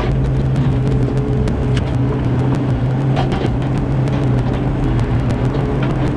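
Mini excavator engine running steadily, with a few short clicks and knocks over it.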